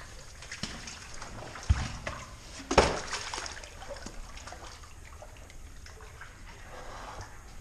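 Water sloshing and trickling as a person wades through a shallow pool in a rock channel. Two sharp, louder hits come a little under two and about three seconds in, the second the loudest.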